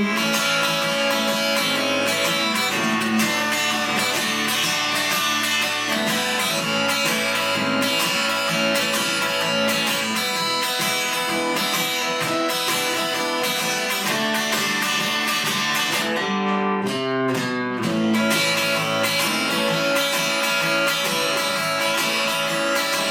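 Guitar playing an instrumental break in a song, strummed chords with no singing, and a short run of single notes about three quarters of the way through.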